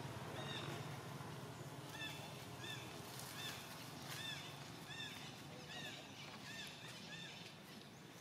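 Baby monkey giving a rapid series of short, high squeaks, each rising and falling, about two a second. Faint rustles of dry leaves sound as the infants tumble.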